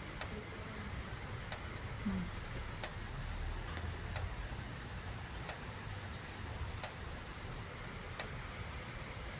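Outdoor night background after a thunderstorm: a steady low rumble that swells briefly about three to four seconds in, sharp ticks every second or so, and a steady high hiss.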